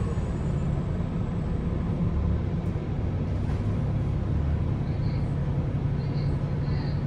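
Steady low rumble inside a 2022 Gillig hybrid bus, from its Cummins B6.7 diesel engine and BAE hybrid drive, with no ventilation fans running. A few faint high chirps come in near the end.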